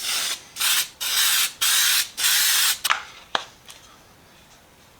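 Aerosol can of rust reformer spraying in about five short hissing bursts, the longest about half a second, stopping about three seconds in. Two light clicks follow.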